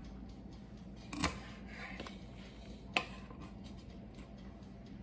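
A metal baking tray being handled on a kitchen countertop: two light knocks, about a second in and about three seconds in, with a few faint ticks, over a steady low hum.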